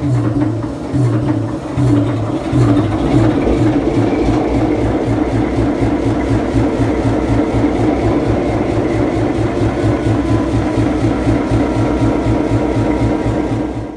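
Diesel locomotive engine running, its low throbbing beat speeding up over the first few seconds and then holding steady.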